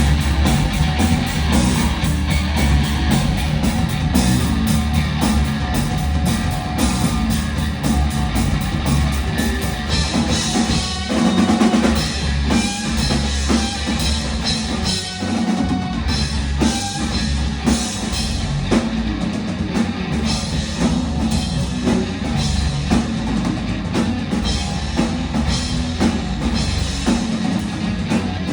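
Shoegaze band playing live: a drum kit keeping a steady beat under bass and a dense wash of guitars.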